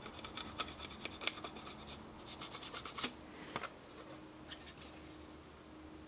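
Fingers scratching and rubbing on a coated engine-control circuit board, scraping at the potting compound over the chips. A quick run of small scratchy clicks fills the first three seconds, then a few fainter clicks follow.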